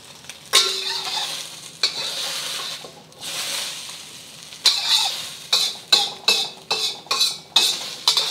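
Beaten eggs sizzling in a wok on residual heat, the burner off. From about halfway, a run of quick scrapes of a utensil against the wok, about two to three a second, as the cooked egg is scooped out.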